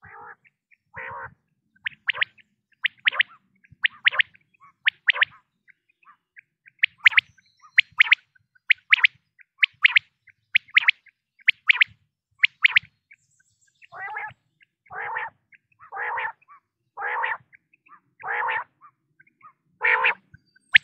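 Recorded quail calls, as played to lure quail: short, sharp high calls repeated about once a second, giving way about two-thirds of the way through to longer, lower, rougher calls at the same pace.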